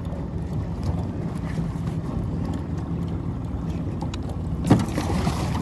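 Boat motor running steadily at trolling speed, a low even hum under wind and water noise. A single sharp knock about four and a half seconds in.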